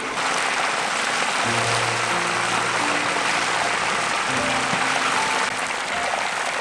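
Whole chickens deep-frying in a large wok of hot oil: a dense, steady sizzle and crackle. Background music with soft held notes plays underneath.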